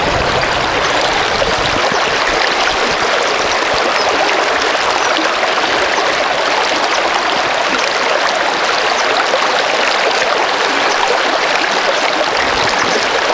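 Shallow river riffle running over rocks close by: a loud, steady rush of water.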